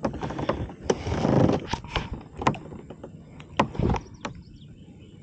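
Irregular knocks and clicks with rustling, as of a fish and tackle being handled in a kayak, with a brief noisy swell about a second in.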